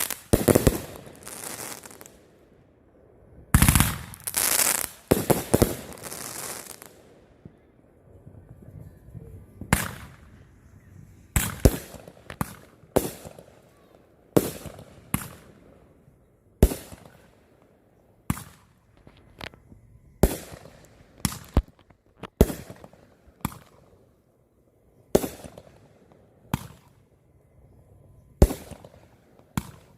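Fireworks going off: two bursts of rapid crackling bangs in the first seven seconds, then a string of single sharp bangs every second or two.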